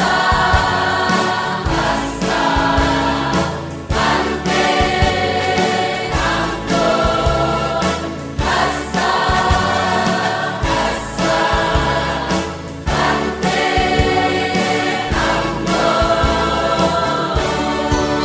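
Choir singing in harmony, held notes in several voices, over an accompaniment with a steady beat.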